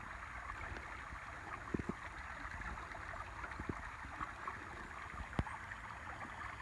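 Creek water running and trickling steadily past a breached beaver dam as the pond drains, with a few soft knocks.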